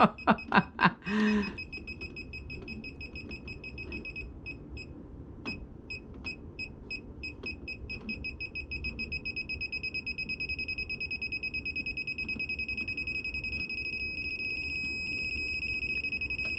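High-pitched electronic beeping from a circuit breaker finder's receiver being scanned across a breaker panel. The beeps come in scattered bursts at first, then settle into a steady fast beeping about five times a second from about halfway. Near the end they run together into an almost continuous tone as the receiver picks up the signal of the traced circuit.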